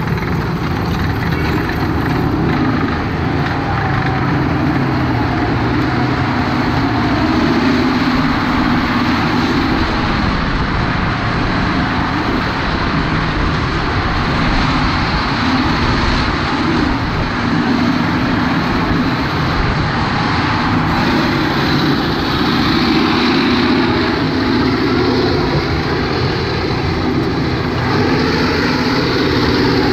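M-84 main battle tank's V12 diesel engine running under load as the tank drives and turns on gravel, its note swelling and easing.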